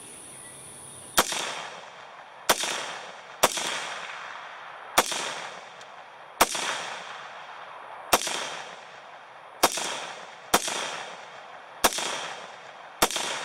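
AR-15 rifle built in 7.62x39 firing ten semi-automatic shots at an uneven pace, roughly one every second or so, starting about a second in. Each shot is followed by an echo that dies away over about a second.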